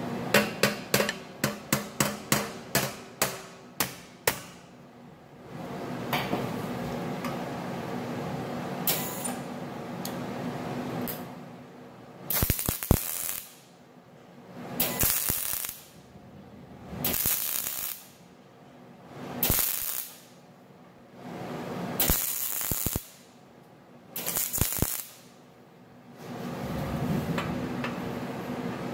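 About a dozen quick hammer blows on a steel combine keystock grate clamped in a vise, about three a second. From about twelve seconds in come roughly seven short MIG welding bursts, each a crackling second or so, as the grate's broken welds are welded up.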